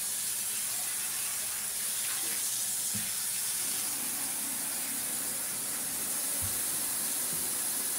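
Water running steadily from a kitchen tap, with two faint low knocks about three seconds and six and a half seconds in.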